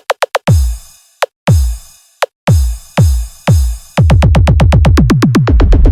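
Electronic sound-check battle mix music from a drum machine. It opens with a fast roll of short hits, then deep, heavy bass kicks with falling pitch come about once a second, and about four seconds in they quicken into a rapid build-up roll.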